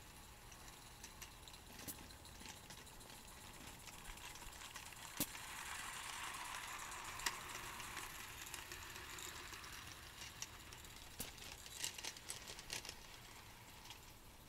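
Small garden-railway train running on outdoor track: faint clicking and rattling of its wheels and couplings. A soft hiss swells and fades in the middle.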